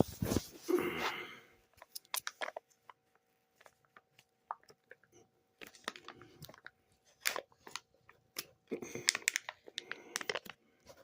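A food packet being torn and crinkled open by hand, in scattered crackles and rustles, with denser bursts about a second in and again near the end.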